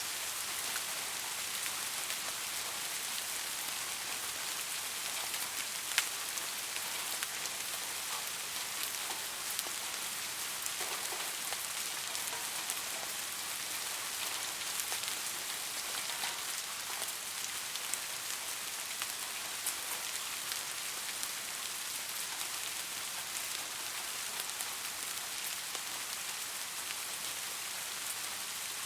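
Steady rain falling, an even hiss dotted with small drop ticks, with one sharper drop hit about six seconds in.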